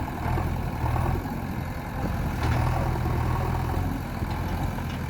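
JCB 3DX backhoe loader's diesel engine running with a steady low drone that swells twice, about half a second in and again about two and a half seconds in.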